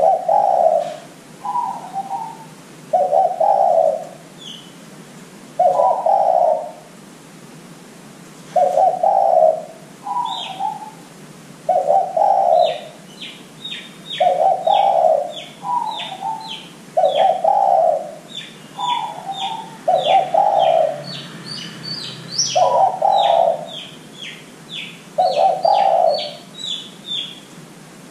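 Spotted dove cooing, a phrase repeated every one to three seconds, some phrases with a shorter, higher note. From about halfway through, a small bird chirps rapidly in the background, several sharp high notes a second.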